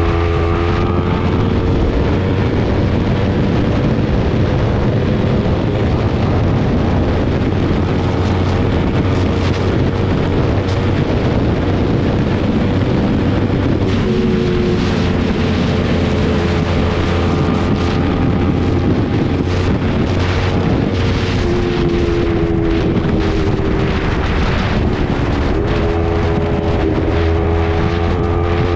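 Sport motorcycle's engine running at cruising speed under heavy wind noise on the microphone, its pitch dipping and rising again a few times with the throttle.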